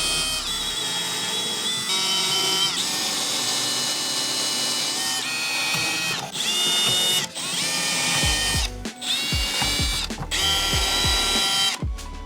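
Cordless drill boring pilot holes through a thin wooden board: a high motor whine in a series of short runs, each slowing and stopping before the next. Background music with a bass beat plays underneath.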